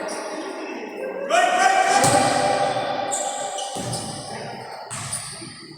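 Basketball bouncing on a hardwood court during play, several dribbles in a large echoing gym, over crowd voices and a held shout or call about a second in.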